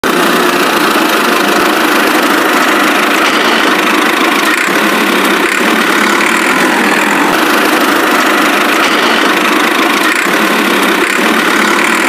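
An engine running steadily at an even level, with no change in speed.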